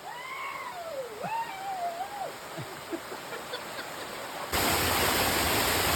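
A quieter stretch of rainforest background with a bird's whistled calls that rise and fall, then a sudden cut about four and a half seconds in to the louder, steady rush of a waterfall.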